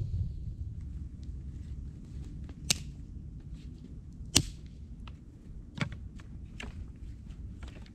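Dry branches snapping as they are broken by hand: four sharp cracks in the second half, the loudest near the middle, with fainter crackles between.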